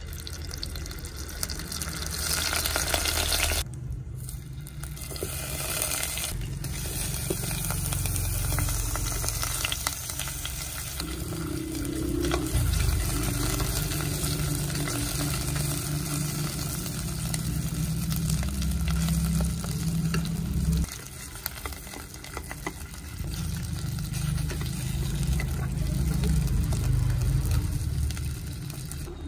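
Food sizzling as it fries in a pan, with a steady low hum underneath; the sound shifts abruptly about 4 and 21 seconds in.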